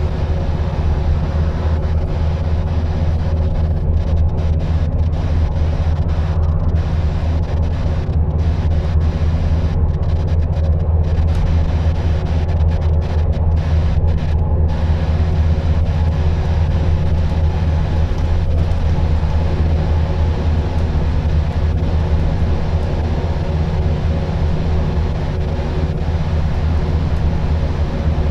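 Scania N230UD double-decker bus's five-cylinder diesel engine running steadily at cruising speed, a low, even drone with road and tyre noise, heard from inside the passenger saloon.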